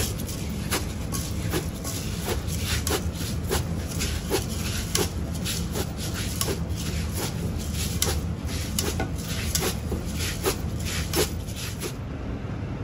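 Dry uncooked rice being stirred and rubbed by hand in a metal rice cooker pot: an irregular run of sharp clicks and knocks, two or three a second, over a steady low hum.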